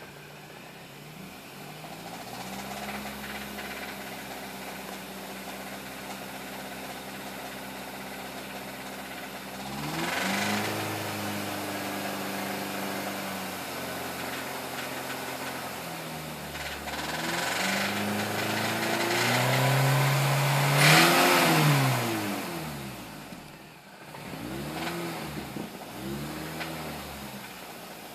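2005 MINI Cooper S's supercharged 1.6-litre four-cylinder engine idling and being revved several times, the biggest rev about three-quarters of the way through and a few short blips near the end. The engine makes a clacking, clicking noise.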